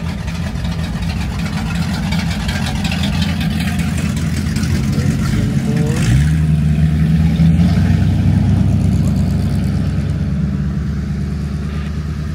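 Car engine running with a low rumble as a car drives out. About six seconds in, the engine revs up sharply and holds the higher pitch for a couple of seconds, loudest there, then eases off.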